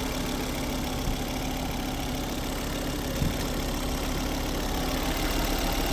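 Ford Focus XR5 Turbo's five-cylinder engine idling steadily, with a couple of faint knocks. It is running with the radiator cap off during a check for a suspected head gasket fault and sounds healthy.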